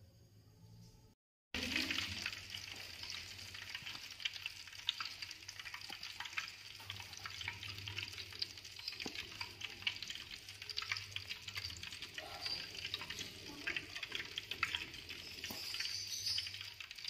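Hot cooking oil sizzling and crackling in a wok on a portable gas stove, a dense run of small pops that starts abruptly about a second and a half in.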